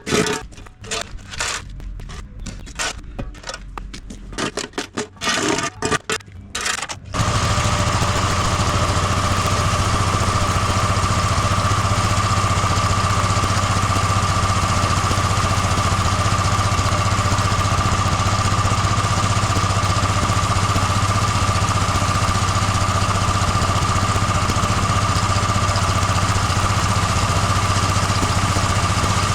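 Gas-engine pressure washer running at a steady speed, a low hum with a steady high whine over it, starting about seven seconds in after a stretch of choppy, stop-start sound.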